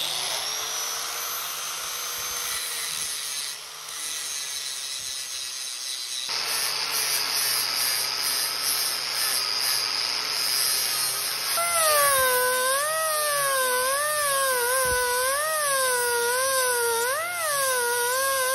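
Grinders cleaning up a cast bronze fitting: first an angle grinder with an abrasive disc, a steady grinding noise. About two-thirds in, a die grinder with a small sanding disc takes over, its whine wavering up and down in pitch as it is pressed against the bronze.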